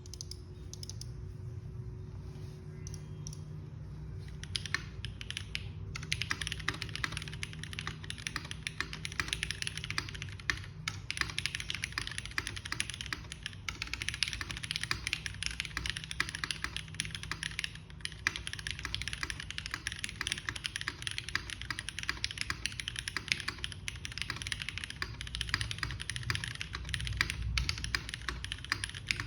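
Typing on a Geonworks F1-8X mechanical keyboard with lubed Cherry MX Black Hyperglide linear switches on an aluminium leaf-spring plate and GMK keycaps. A few scattered keystrokes come first, then fast, continuous typing from about six seconds in.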